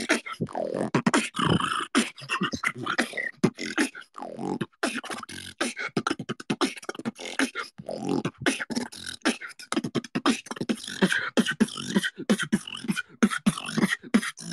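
Solo human beatboxing: a fast, unbroken run of mouth-made kick, snare and hi-hat sounds.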